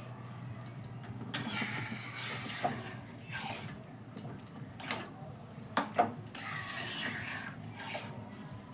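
A metal spatula scraping and knocking against a steel kadai as thick khichuri is stirred: longer scrapes with a handful of sharp knocks. A steady low hum runs underneath.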